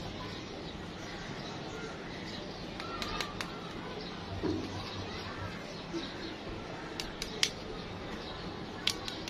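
Faint bird calls over a steady outdoor background, with a few sharp clicks and taps in small clusters from fingers handling the plastic eggs.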